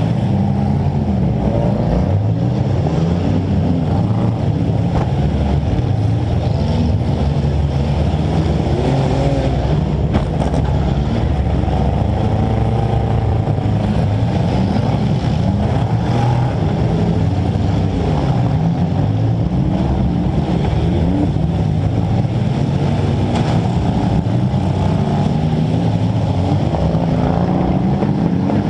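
Compact demolition derby car's engine, heard close from a camera on its hood, running loud and revving up and down over and over as the car drives.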